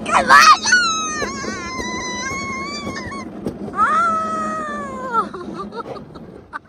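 Two long, high-pitched squeals from a rider on an alpine bobsled coaster. The first is held for about two and a half seconds, and a lower one follows for about a second and a half. A steady rumble from the sled's run lies under them and fades out near the end.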